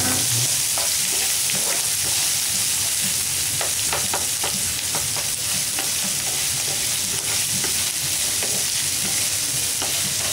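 Chopped onions, peanuts and cashews sizzling in hot oil in a nonstick pan, with a steady frying hiss. A wooden spatula stirs them, giving scattered scrapes and taps against the pan.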